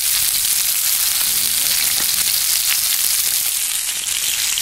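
Thick sausages frying in hot oil in a skillet over a campfire, a steady hissing sizzle.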